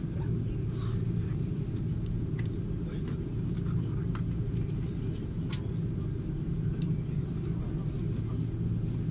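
Steady low rumble of an Airbus A330-300 taxiing, heard inside the cabin: engine and ground-roll noise carried through the fuselage, with faint scattered clicks above it.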